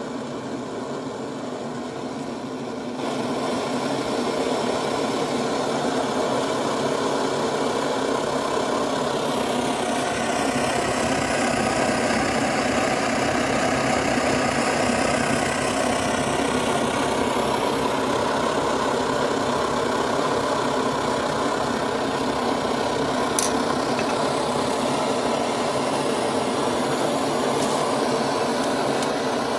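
Optimus 111B white-gas pressure stove burning steadily at full flame with a steady rushing roar, stepping up in loudness about three seconds in. The stove is running well on new cap, pip and pump check-valve seals and a cleaned fuel-line mesh. A single sharp click a little after the middle.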